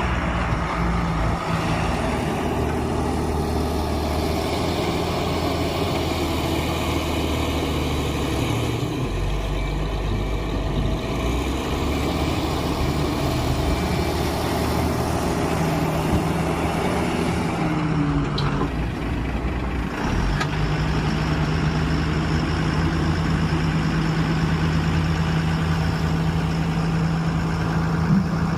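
Diesel engine of a Tata 340H backhoe loader running while it works, the engine note shifting in pitch a few times as the load changes. A couple of short clicks come a little past the middle.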